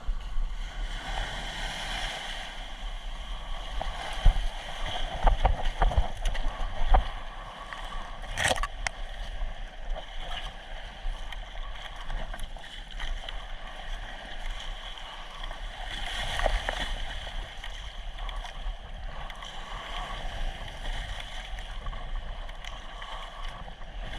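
Small fishing boat's engine running steadily as the boat heads out through waves, with water splashing and knocking against the hull now and then.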